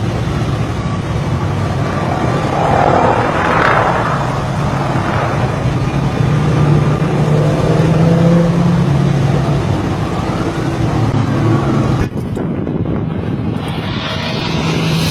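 Steady engine drone with rushing wind noise, typical of a light aircraft in flight; about twelve seconds in it cuts abruptly to a different, hissier recording.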